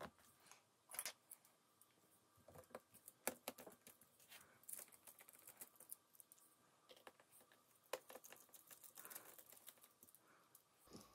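Faint, scattered clicks and taps of a laptop battery pack being handled and pressed into place in an open notebook's plastic chassis.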